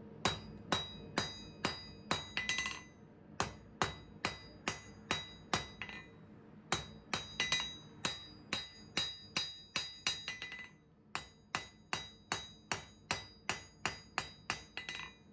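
Hand hammer striking glowing-hot mild steel flat bar on an anvil: a steady run of blows about two a second, each followed by a clear metallic ring, broken by two short pauses.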